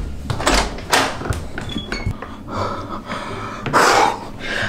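A few light knocks and thuds, then a closet door being opened, with a short swishing noise near the end.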